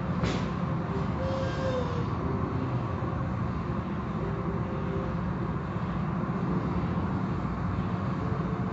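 Automatic tunnel car wash heard from inside the car: a steady low rumble of the wash machinery with water and the cloth curtains washing over the windshield. There is one sharp knock just after the start.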